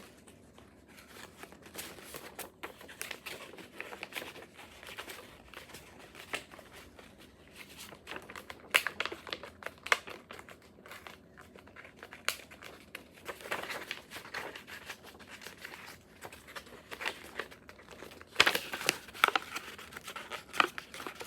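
A folded sheet of printer paper rustling and crinkling in the hands as a flap is worked into a pocket of the fold: irregular soft scrapes and small crackles, with a louder burst of rustling about two-thirds through and another near the end.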